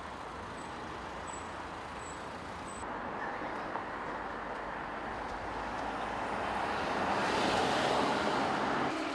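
Road traffic noise, with one vehicle passing close and growing louder toward a peak near the end before easing off.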